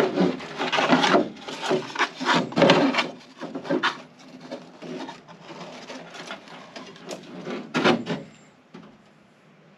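Thin carbon-fibre panels scraping, rubbing and knocking against each other and the hull as they are handled and fitted into place. Several scrapes and knocks come in the first four seconds, then quieter handling, with one more clatter about eight seconds in.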